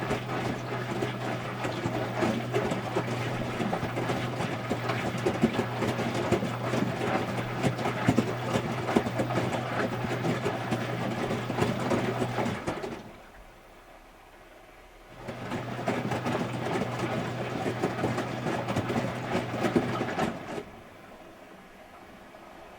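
Electrolux Wascator W355H commercial washing machine turning its drum in a wash: a steady motor hum under the churn of laundry and water tumbling. It stops about halfway through, pauses for about two seconds, then turns again for about five seconds before stopping.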